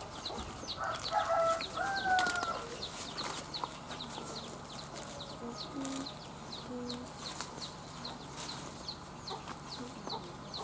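Chickens clucking, with a louder gliding hen call about two seconds in, over a short high chirp repeated a few times a second.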